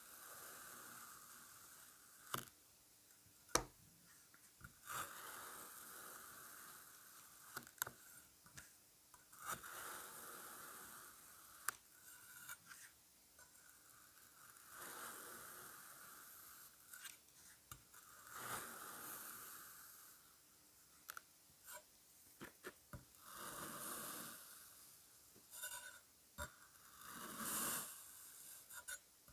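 Kinetic sand being cut and scraped: soft, gritty crunching swells that come and go every few seconds, with sharp clicks and taps scattered between them.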